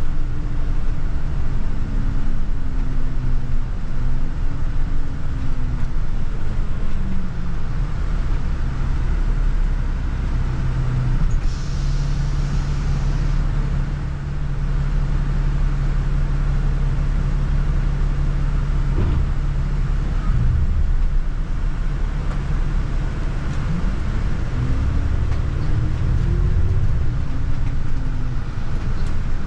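Double-decker bus running, heard from inside on the upper deck: steady engine and road rumble, with the engine pitch falling over the first several seconds and rising again near the end as it changes speed. A brief hiss sounds about twelve seconds in.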